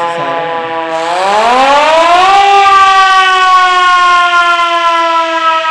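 Hand-cranked mechanical siren wailing loudly. About a second in, its pitch climbs as the crank speeds up, then it holds a higher note that sags slightly.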